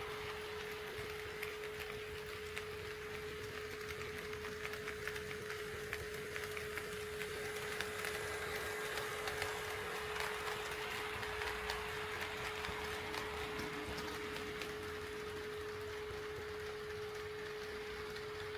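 HO-scale model train running on KATO Unitrack, wheels ticking rapidly over the rail joints and growing louder about halfway through as it passes closest. A steady pitched hum sounds under it.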